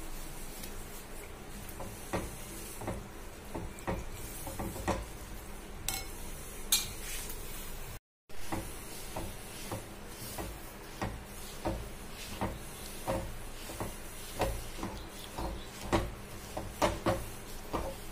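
Steel spoon stirring sesame seeds and peanuts into thick jaggery syrup in a metal kadhai, with irregular scrapes and knocks of the spoon against the pan. The sound breaks off briefly about eight seconds in.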